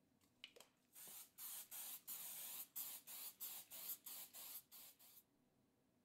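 3M Spray Nori 55 aerosol spray adhesive being sprayed in about a dozen short hissing bursts over roughly four seconds, one of them longer, to coat the back of a sheet of 120-grit sandpaper with glue. A couple of faint clicks come just before the spraying starts.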